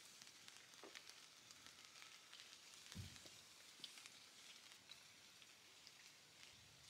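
Faint rain falling: a steady soft hiss with scattered light ticks of drops, and one soft thump about three seconds in.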